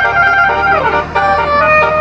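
A 12-note basuri telolet air horn set, its valves fired from a MIDI file, playing a melody of held horn notes, several sounding together. A little before the middle the notes slide down in pitch, with a short drop in loudness about a second in.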